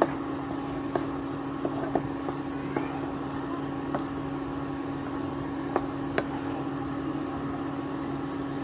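Wooden spatula stirring thick semolina halwa in a nonstick pan: soft scraping with a few irregular light knocks of the spatula against the pan, over a steady low hum.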